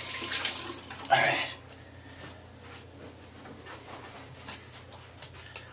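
Bathroom sink tap running, stopping about a second and a half in, with a short vocal sound just before it stops; then a few light clicks and knocks near the end.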